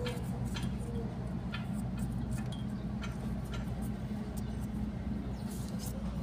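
Steady low machine hum with even low-pitched tones, with scattered light clicks and taps over it.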